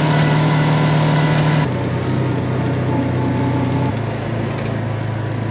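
Side-by-side UTV engine running steadily as the vehicle drives over farm ground, heard from on board. Its drone jumps abruptly to a new pitch twice, about one and a half and four seconds in.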